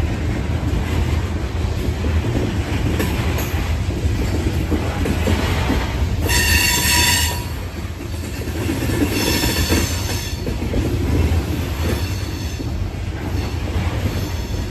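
Loaded coal hopper cars of a freight train rolling past with a steady low rumble. High-pitched wheel squeal rises about six seconds in, again around nine seconds, and more faintly near the end.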